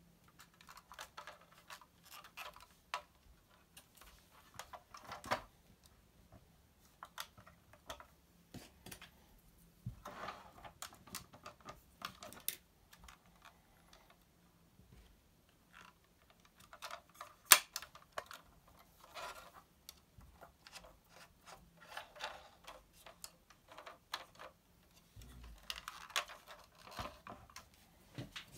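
Small irregular clicks and taps of hands handling a 1:18 diecast model car, working its hinged door and trunk lid and touching it down on a wooden table, with one sharper click past the middle.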